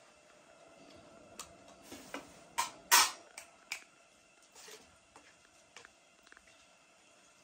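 Metal bowls and kitchenware being handled: a string of light clinks and knocks, with the loudest about three seconds in and a few fainter taps after it.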